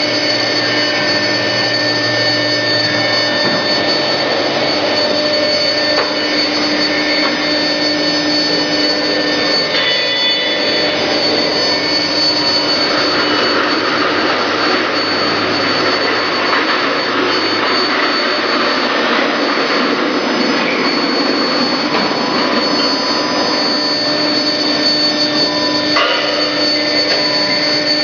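Loud, steady whir of running workshop machinery, with several steady whining tones over a rushing noise. A single sharp knock comes near the end.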